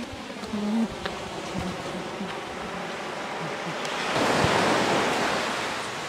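Strong high-tide surf washing up the shore, with one wave surging in louder about four seconds in.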